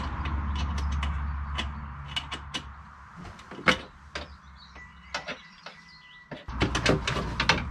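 Irregular metallic clicks and knocks of a hand tool being worked on a hard-to-reach bolt in the car's front chassis, with one sharper clack a little before the middle. A low rumble runs under the first few seconds, stops, and comes back near the end.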